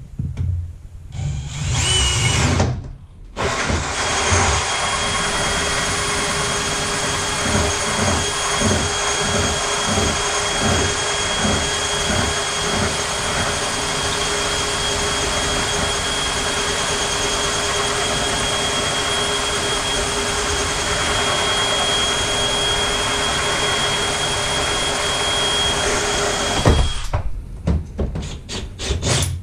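Cordless drill running a hole saw: a short burst, then one long steady run with a high whine for over twenty seconds. For a few seconds early in the run a low chatter pulses about twice a second. It stops a couple of seconds before the end.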